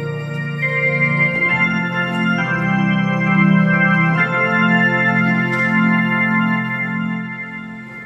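Organ playing slow, sustained chords that change every second or two, fading away near the end.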